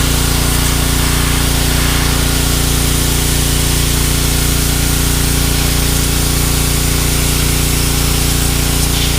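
Pressure washer running steadily, its motor humming under the hiss of the water jet blasting dirt out of concrete.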